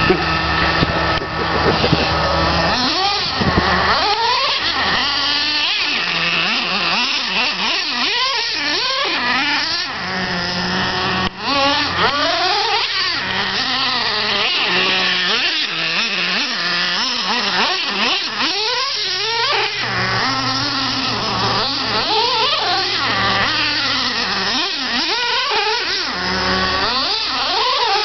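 Small nitro two-stroke glow engines of radio-controlled monster trucks, including a Traxxas Slayer's TRX 3.3, revving up and down again and again as the trucks are driven. The whine rises and falls every second or two, and at times two engine notes overlap.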